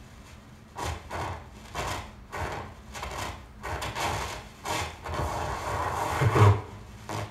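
Rough scraping strokes on a hard surface, about two a second, that run together into one continuous scrape with a heavy low thump near the end.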